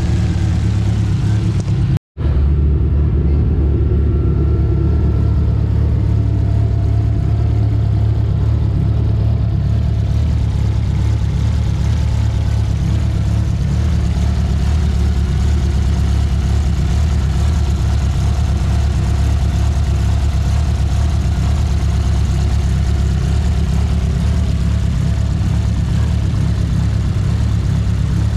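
Turbocharged E85 car engine idling steadily, a low even drone, while a new MAP sensor calibration is tried on its Haltech engine management. The sound cuts out completely for an instant about two seconds in.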